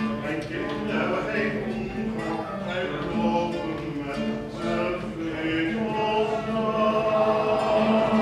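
Amateur choir singing a Dutch song together, with a man's voice close and loud in front; the notes are held and move from one pitch to the next.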